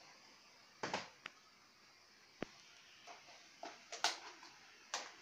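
Scattered light clicks, taps and rustles of small objects being handled on a workbench, with a sharp click near the middle and a quicker run of clicks near the end.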